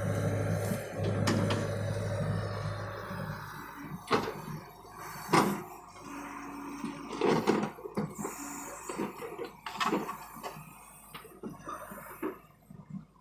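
John Deere excavator at work: a steady engine hum for the first few seconds, then a string of sharp knocks and clunks spread over the rest of the time.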